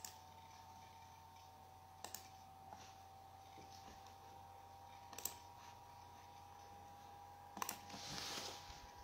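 Near silence with a faint steady electronic whine, broken by four sharp, isolated clicks a couple of seconds apart and a brief rustle near the end.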